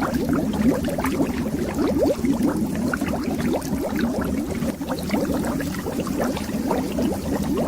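Continuous underwater bubbling: a dense, steady stream of small bubbles rising and popping, each a short upward-gliding blip, over a low rumble.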